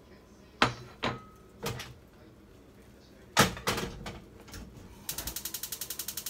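A few sharp knocks of cookware and a plate being set down on the stove, then, about five seconds in, a fast, even run of clicks at roughly fifteen a second, typical of a gas hob's spark igniter being turned on.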